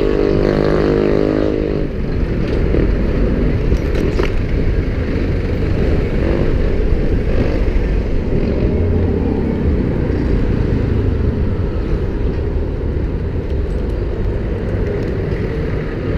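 Street traffic heard from a moving electric scooter: a steady low rumble of road and wind noise, with a passing motor vehicle's engine droning for the first two seconds.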